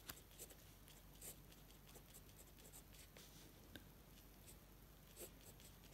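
Fountain pen nib scratching faintly on paper as characters are written stroke by stroke, with small scattered ticks as strokes start and end.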